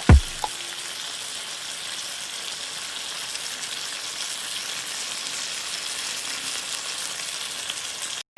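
Chicken frying on a hot pan, a steady crackling sizzle that cuts off abruptly just before the end. A brief low whoosh sounds at the very start.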